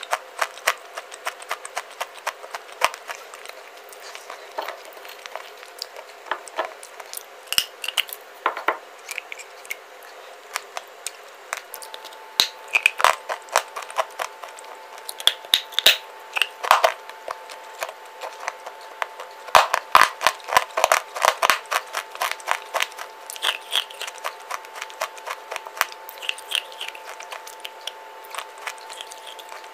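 Crunchy clay bar being bitten and chewed: a long run of sharp, crisp cracks and crunches, thickest in the middle.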